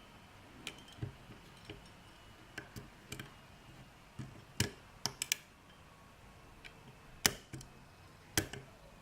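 Lock pick and tension wrench working inside a small Corbin padlock's paracentric keyway: irregular light metallic clicks and ticks as the pick probes the pins, with a few sharper clicks about halfway through and near the end.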